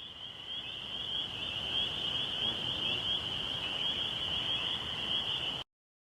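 A dense, steady high-pitched chirping chorus that fades in and cuts off abruptly shortly before the end.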